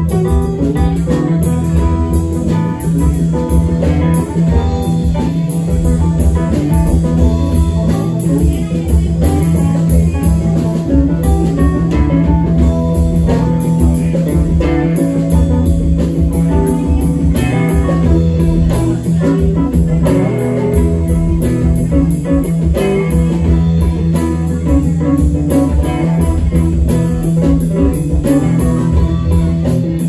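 Live rock band playing an instrumental jam: electric guitars leading over bass guitar, a drum kit and keyboard.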